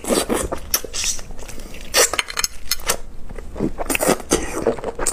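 Close-miked mouth sounds of eating a peeled langoustine tail: biting, wet smacks and slurps, an irregular run of short clicks with the loudest about two and four seconds in.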